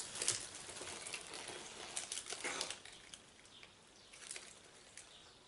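Faint crinkling of foil trading-card pack wrappers and rustling of cards being handled, thinning out to occasional light ticks after about halfway.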